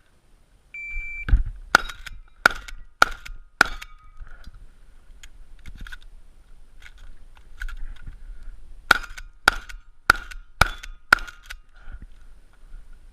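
Electronic shot timer's start beep about a second in, then gunshots: five rapid shots about half a second apart, a pause of about five seconds, then five more at the same pace.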